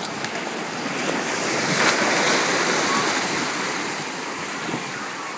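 Rushing noise of shallow surf with wind on the microphone. It swells about a second in, is loudest around two seconds, then eases off.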